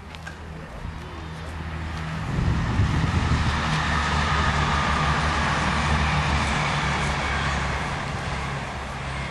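Engine noise of something large passing: a steady low drone under a rushing sound that swells about two seconds in, stays strong for several seconds and eases toward the end.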